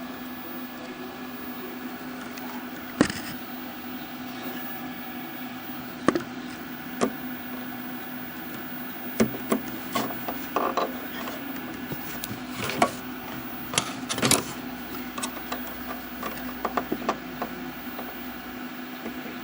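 Steady low hum from the speaker of a Packard Bell MQ625 tube portable TV, with scattered sharp clicks and scrapes of a screwdriver probing the chassis at the volume control, busiest in the middle. No buzz answers the touch: the set's audio stage is dead.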